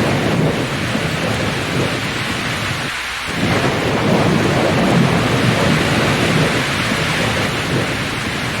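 Thunderstorm: heavy rain with a low, rumbling thunder, loud and continuous, the rumble dipping briefly about three seconds in.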